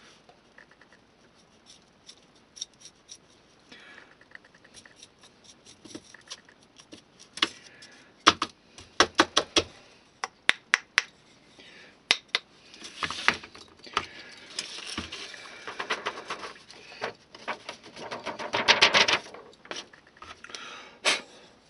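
Small handling noises at a workbench: a small paintbrush scratching and dabbing dry rust powder onto a textured styrene model load, with scattered sharp taps and clicks. A longer stretch of paper rustling and scraping comes in the second half.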